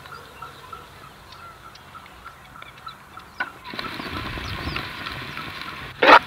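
Outdoor village ambience: a small bird or insect chirping about four times a second, with a steady rushing noise coming in about halfway. Near the end, loud harsh calls of farm poultry break in.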